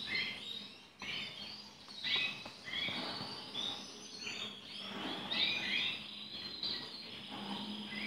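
Small cage birds chirping: short, high twittering calls that come again and again.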